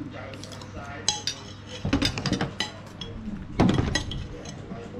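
Metal spoon and fork clinking and scraping against plates and a bowl while eating, a scatter of sharp clinks with the loudest a little after three and a half seconds in.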